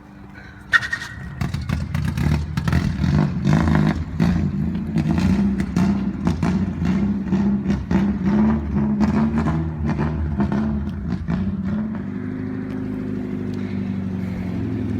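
Nissan 240's engine catching on a push start: a sudden sharp knock about a second in, then the engine runs unevenly with a wavering pitch and a rapid clatter of sharp pops, settling to a steadier idle near the end.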